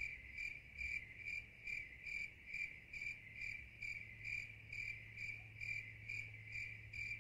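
Cricket chirping in an even rhythm, a little over two chirps a second.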